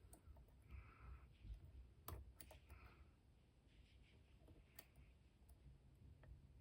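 Faint, scattered clicks of a lock pick and tension wrench working the pins of a Master Lock No. 150 padlock, a few sharp ticks among near silence. The lock has serrated pins, which catch with small clicks as they are set.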